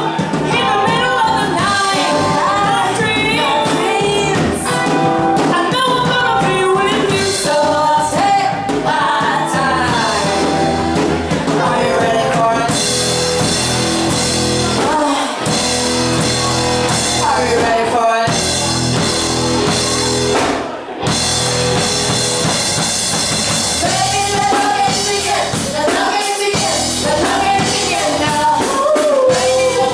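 A band playing a rock song: a singer over drum kit and guitar. The cymbals and guitar get fuller and brighter about halfway through, then drop out for a moment before the singing carries on.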